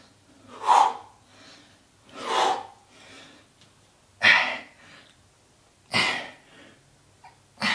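A man's forceful exhales during oblique crunches, one sharp breath out with each rep, roughly every second and a half to two seconds.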